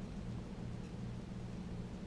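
Steady low hum with a faint even hiss: room tone, with no distinct sound event.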